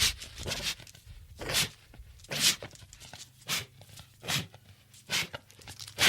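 Pit bull dog snorting in short, sharp bursts about once a second, over a faint low rumble.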